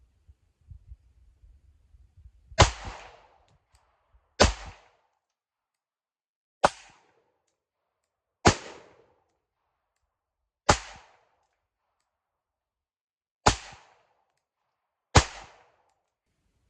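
Seven 9mm pistol shots from a Springfield Hellcat micro-compact fitted with a threaded barrel, fired one at a time about two seconds apart, each a sharp crack with a short echo.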